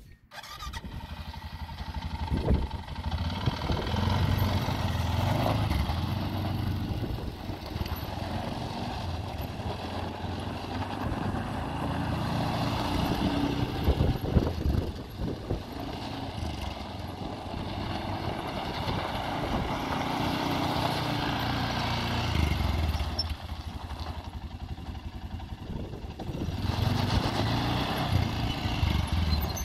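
2014 Arctic Cat ATV engine running as the quad is ridden, its note rising and falling with the throttle several times.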